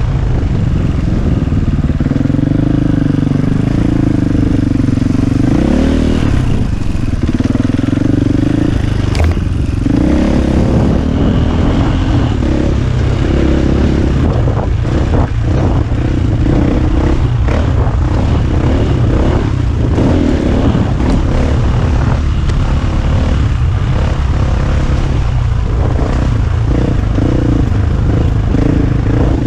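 KTM EXC450 enduro motorcycle's single-cylinder four-stroke engine running under load, its pitch rising and falling repeatedly with the throttle, with frequent knocks and rattles from the bike over rough ground.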